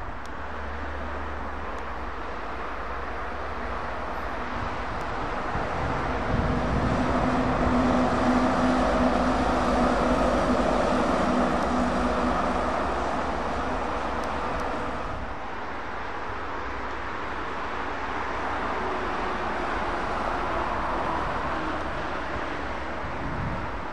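Road traffic with heavy trucks driving past: engine drone and tyre noise swell to a peak as one passes near the middle, fade, then rise again more gently near the end.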